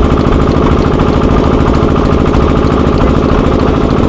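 1925 Kromhout M2 tractor's vertical single-cylinder engine running steadily, with an even, rapid pulse.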